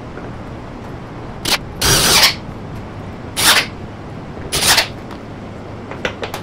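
Cordless drill/driver driving screws through a metal bracket into a wooden table panel in four short bursts, followed by a few light clicks near the end.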